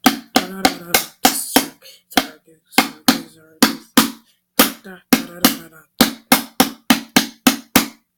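Homemade slime being squeezed and poked by hand, giving a quick run of sharp clicks and pops, about three a second.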